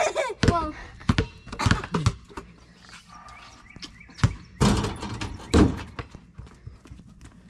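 A basketball bouncing on an asphalt driveway and striking a portable hoop's backboard and rim: a string of irregular thuds. A child's voice briefly at the start.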